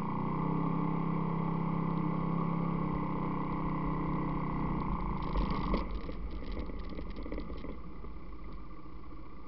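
ATV engine running at a steady pitch, then the note drops away about six seconds in as the throttle comes off. A quick spatter of crackles and splashes comes around the same time as it rolls into muddy water.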